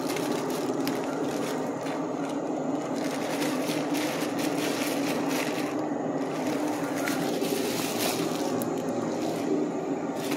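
Plastic garbage bag crinkling in short crackles as it is handled, over a steady background hum.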